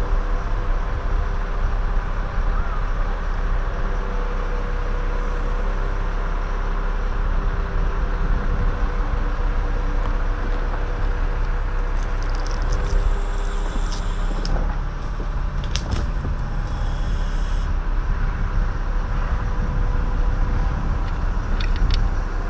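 Bucket truck's engine running steadily, with a few sharp clicks about two-thirds of the way through.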